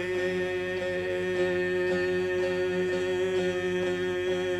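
Turkish folk song: a man's voice holds one long, steady note over a soft instrumental backing, the note ending near the end.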